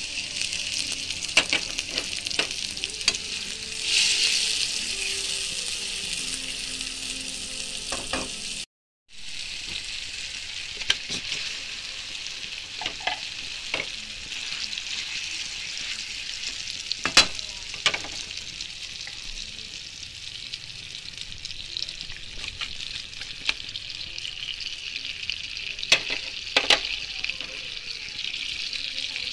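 Onions, tomatoes and corned beef sizzling steadily in hot oil in a wok, stirred with a wooden spatula that scrapes and knocks against the pan now and then. The sizzle swells about four seconds in and drops out briefly about nine seconds in.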